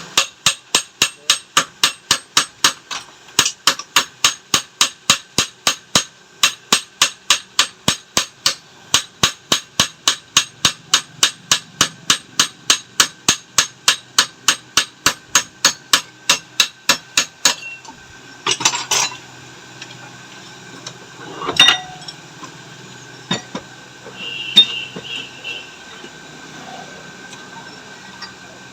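Hand hammer striking metal in steady, rapid blows, about three a second, that stop about seventeen seconds in; a few separate metal clanks follow, one with a short ring.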